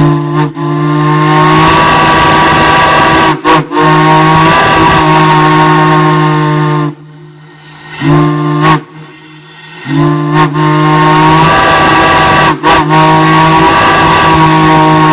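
A large chime whistle blowing a chord of several notes with a hiss: a long blast of about seven seconds, two short toots, then another long blast. Each blast scoops up slightly in pitch as it starts, and the long blasts are cut by a few quick breaks.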